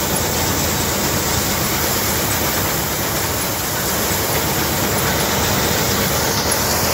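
Wheat threshing machine running steadily, a dense even mechanical noise with no breaks.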